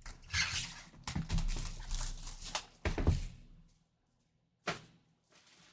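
Plastic shrink-wrap crinkling as it is pulled off a sealed trading-card box, with a few sharp knocks of the box being handled. It stops about three and a half seconds in, and one more short knock comes about a second later.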